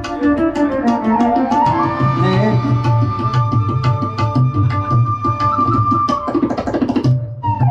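Indian devotional ensemble playing an instrumental introduction: harmonium and a melody instrument hold long, gliding notes over steady tabla strokes. Near the end comes a quick run of tabla strokes, a brief break, and then a new note sliding up.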